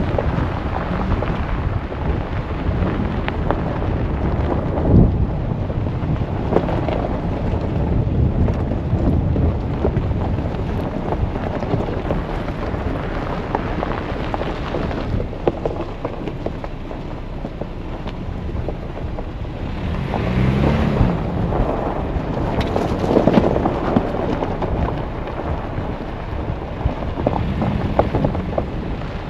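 Off-road truck driving over a rough dirt trail: a steady low rumble with scattered knocks and rattles, and wind buffeting the microphone.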